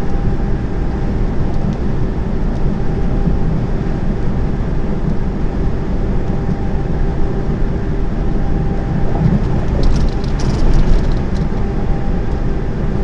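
Inside a diesel lorry's cab at motorway speed: the steady low drone of the engine and road noise, with a faint steady whine. About ten seconds in comes a short patch of light clicking or rattling.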